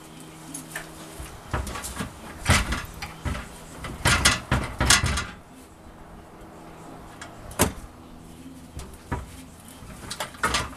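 Irregular clunks, knocks and scrapes as a truck's fuel tank is worked loose and lowered on a transmission jack, loudest in a cluster about four to five seconds in.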